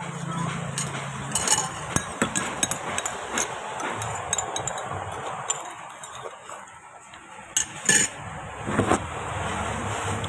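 Metal spoon clinking and scraping against ceramic soup bowls while eating, a run of sharp clinks with two louder ones near the end as the emptied bowls are handled.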